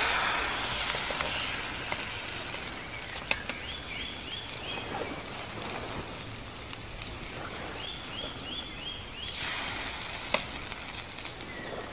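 Batter sizzling in a hot steel frying pan over a wood fire: loudest at the start and settling to a steady sizzle, swelling again near the end as the pan is handled. A few sharp pops from the fire, and a bird twice gives a quick run of four or five chirps.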